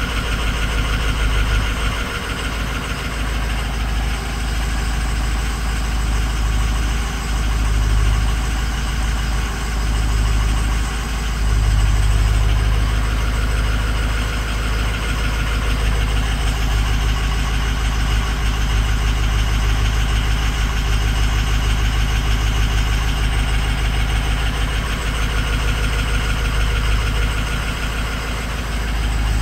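Ford 6.0 Power Stroke turbo-diesel V8 idling steadily; the engine has a bad number 6 injector.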